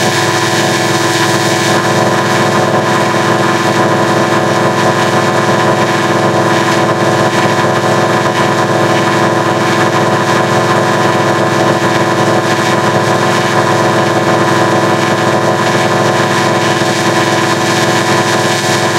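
Loud, steady electronic drone from heavily effects-processed logo audio: a dense stack of held tones over a hiss, distorted beyond recognition, with no rhythm or breaks.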